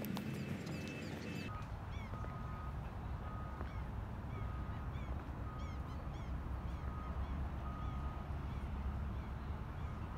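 Outdoor ambience dominated by wind rumbling on the microphone. Above it, a short, clear call repeats about once a second, with faint high chirps.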